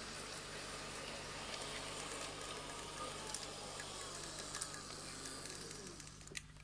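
G-scale Piko BR 204 diesel model locomotive running past on its track: a steady electric motor and gear whine with wheels rumbling on the rails, a few clicks over the track, the whine falling in pitch as it goes by and the sound dropping away about six seconds in.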